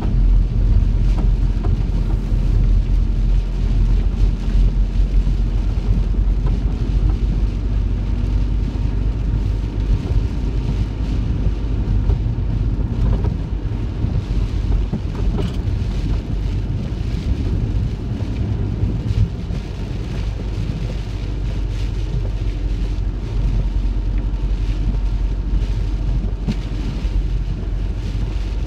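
Heavy rain pattering on a van's roof, heard from inside the van as it drives, over a steady deep rumble of road and engine noise.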